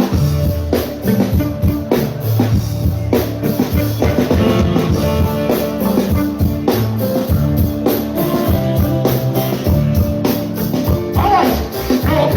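Reggae music, instrumental: a drum kit keeping a steady beat over bass and held chords.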